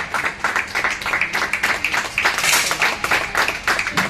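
Spectators clapping together in a quick, steady rhythm, about four or five claps a second.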